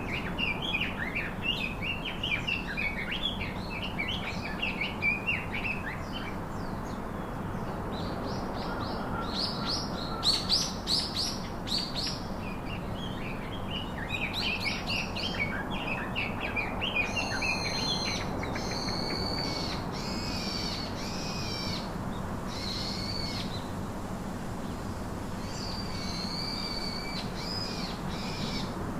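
Small birds chirping and twittering: a dense run of quick high chirps for the first half, then separate, repeated calls a second or so apart.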